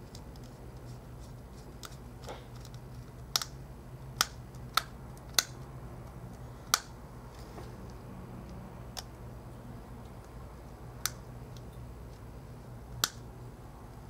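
Small, sharp clicks and taps scattered irregularly, about eight in all, from a precision screwdriver and tiny screws being worked into an iPhone 4's internal frame, over a low steady hum.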